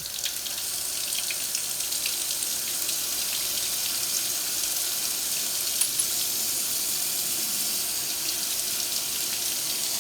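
Steady running water flushing loose metal debris out of a carburetor's passages.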